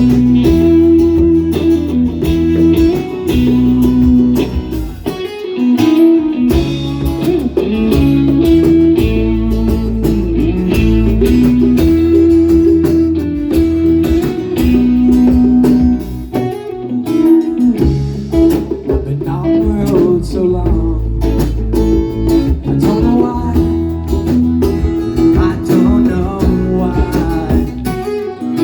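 A band playing an instrumental song section led by guitar, over sustained bass notes and a steady beat.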